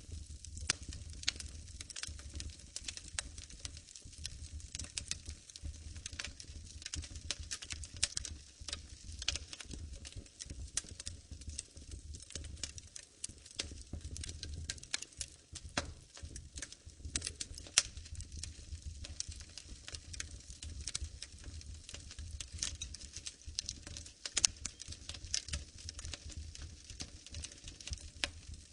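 Fire crackling in a fireplace: a continuous scatter of small pops and snaps over a low rumble, with a few louder pops, one about 18 seconds in and another about 24 seconds in.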